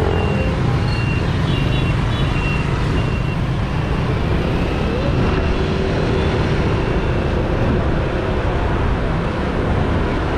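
Street traffic of motorbikes heard from a moving motorbike, with a steady low rumble of wind on the microphone. A few short high beeps sound in the first few seconds.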